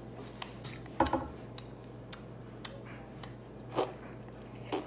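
A few scattered faint clicks and taps of small objects being handled, the sharpest about a second in, over a low steady hum.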